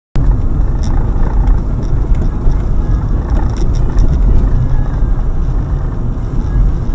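A car driving, heard from inside the cabin through the dashcam's microphone: a loud, steady low rumble of engine and tyre noise, with a few light clicks or rattles.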